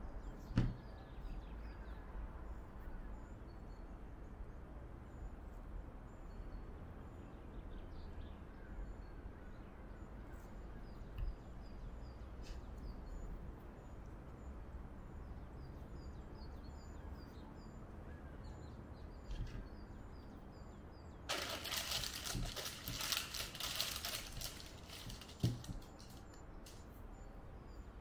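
Hands kneading and rolling soft yeast dough into balls on a floured counter: quiet handling, with a thump just after the start and another near the end. A loud crinkly rustle lasts about three seconds late on, and birds chirp faintly in the background.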